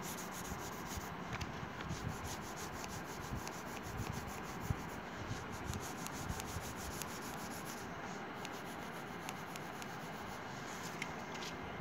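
Coloured pencil shading on paper: a steady scratching from quick back-and-forth strokes.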